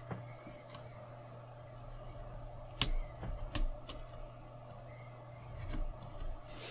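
A few sharp light clicks and taps of a small tool prying a rubber screw cover out of a laptop's plastic screen bezel, two louder clicks close together near the middle, over a steady low hum.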